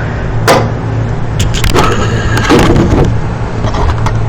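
A steady low hum with several scattered clicks and knocks over it.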